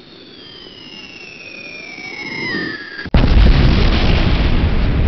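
Falling-bomb whistle, several tones sliding down in pitch and growing louder, cut off about three seconds in by a loud explosion whose rumble carries on.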